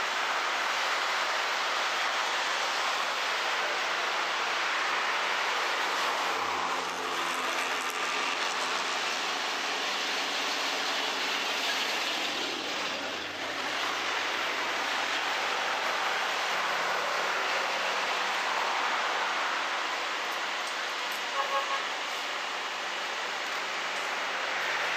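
Steady road-traffic noise with a broad hiss, and a truck's engine droning past about halfway through.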